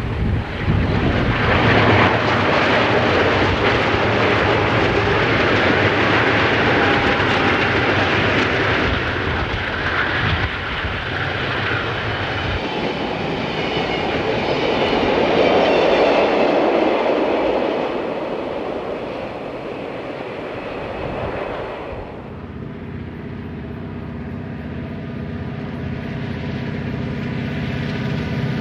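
Burlington Northern GE C30-7 diesel locomotive passing at the head of a coal train, followed by the steady noise of coal hopper cars rolling past on the rails. About 22 seconds in, the sound cuts to the steady drone of a distant Union Pacific SD40-2R diesel locomotive engine, slowly growing louder.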